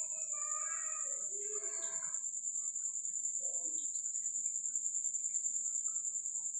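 Crickets chirping in a steady, high-pitched, fast-pulsing drone.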